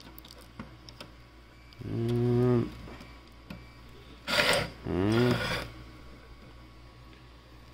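A man's wordless vocal sounds: a low hum about two seconds in, then a short hissing breath and a second, wavering hum a little after the middle.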